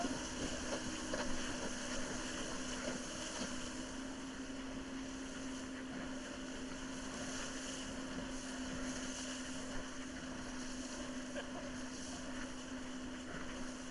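Towing motorboat's engine holding a steady drone under a continuous rush of wind and water, as heard riding on a banana boat.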